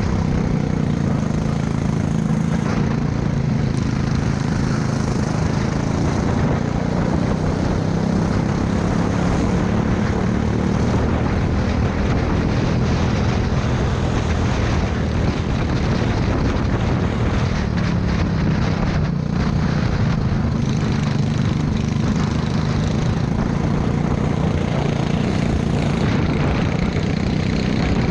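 Racing kart engine running hard at racing speed, picked up by a camera mounted on the kart, its note rising and falling slightly with speed through the corners over a steady rush of noise.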